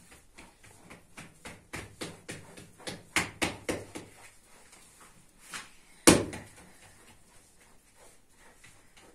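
Hands patting and slapping a large round of flatbread dough stretched over a baker's cushion, with a quick run of slaps about three seconds in. About six seconds in comes one much louder thump.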